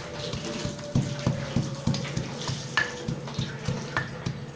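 Pestle pounding and mashing a wet paste of boiled taro in a clay mortar: a steady run of dull, squelching thumps, about three a second.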